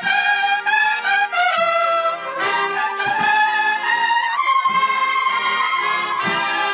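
Cornet-and-drum band (banda de cornetas y tambores) playing a Spanish Holy Week processional march: cornets hold a sustained melody, note changing every second or so, over drum beats.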